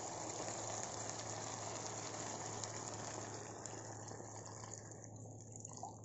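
Chicken in a curd sauce sizzling and bubbling in a hot pan over a high flame. Water is poured in, and the sizzle fades away over the last couple of seconds as the added water cools the pan.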